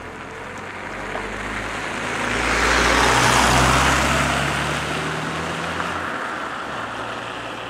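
A road vehicle drives past. Its engine hum and tyre noise swell to a peak about three seconds in and then fade away.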